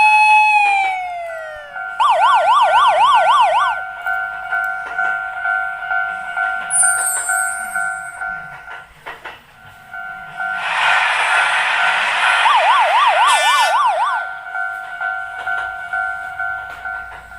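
Electronic railroad-crossing warning bell ringing its repeating 'kan-kan' tone pair, about two to three strokes a second, with a brief pause near the middle. A falling siren-like glide opens it, rapid warbling tones cut in twice, and a rushing noise rises for a few seconds partway through.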